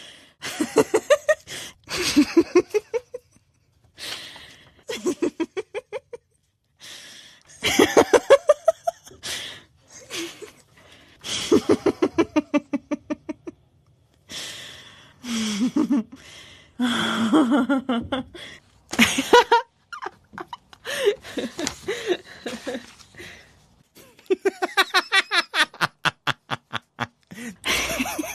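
People laughing in a string of bursts, each a quick run of 'ha-ha' pulses, broken by short pauses.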